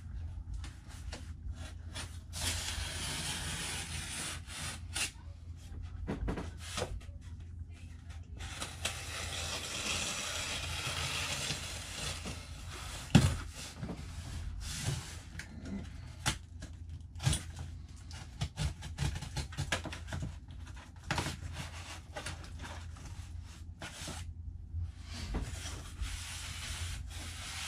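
A large cardboard shipping box being handled and opened: cardboard rubbing, scraping and flexing, with scattered clicks and one loud sharp knock about halfway through, over a steady low hum.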